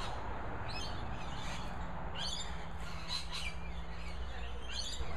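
Birds chirping outdoors in short bursts of calls, four or so groups, over a low steady background hum.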